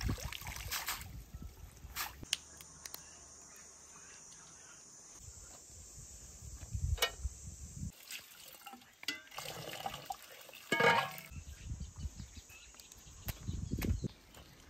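Water splashing and trickling as bunches of fresh greens are rinsed in running water, with scattered sharp knocks and clinks from handling.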